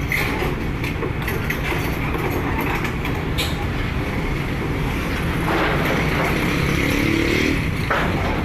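Heavy vehicle engine running steadily, with a few short knocks.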